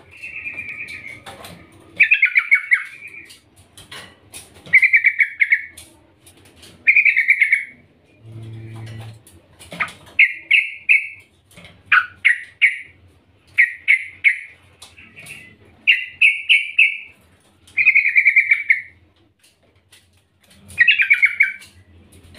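Female yellow-vented bulbul (trucukan) calling in short, bubbly chattering phrases, about one every one to two seconds.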